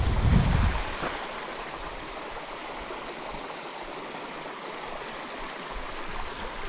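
A small snowmelt stream running over rocks, a steady rush of water. Wind buffets the microphone with a low rumble during the first second.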